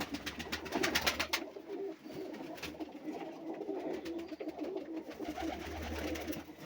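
Domestic pigeons cooing, low wavering calls, after a quick burst of rustling clicks in the first second and a half.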